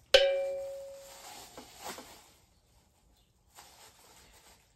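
A single bright bell-like ding, struck once and ringing out over about a second: an edited-in chime marking a correct answer. Faint crinkles of a plastic bag follow.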